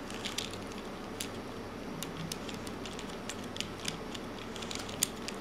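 Small, sharp clicks and taps of plastic twisty-puzzle pieces being handled as a David's Gear Cube corner piece is worked back into its inner mechanism, scattered irregularly over a steady faint hiss.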